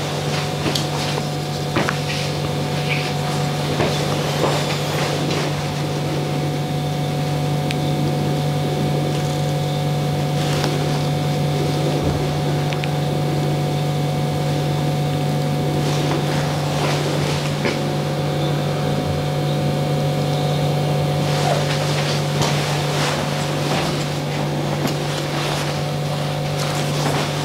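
A steady low electrical or motor hum, the loudest sound, with short scrapes and light clicks of a straight razor shaving stubble close around a mustache.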